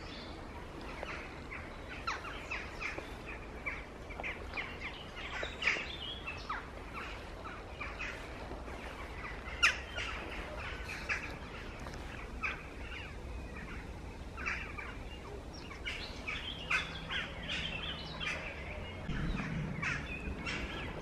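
Small songbirds chirping and singing in the surrounding trees: many short high calls scattered throughout, over a faint steady outdoor background.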